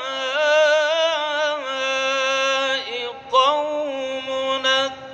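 A man chanting Quranic recitation in a slow, melodic style, drawing one syllable out over long, ornamented notes with a wavering pitch. There is a short break about three seconds in, and the voice is softer near the end.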